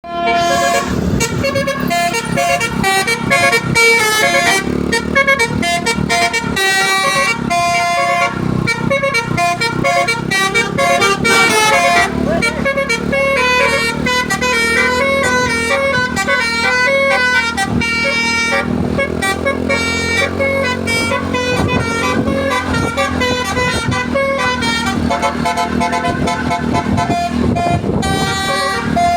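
Basuri musical bus horn playing a melody of stepped, held notes, with the bus engine running underneath.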